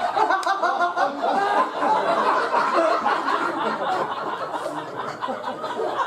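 Audience laughing and chuckling throughout, many voices at once.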